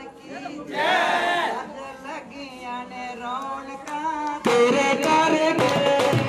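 Group of voices singing Punjabi boliyan folk couplets, unaccompanied at first; a drum beat joins in a little past the middle.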